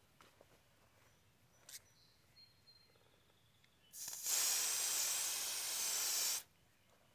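Garden hose spray nozzle hissing as a jet of water sprays onto a car wheel and tyre for about two and a half seconds, starting about four seconds in and cutting off suddenly.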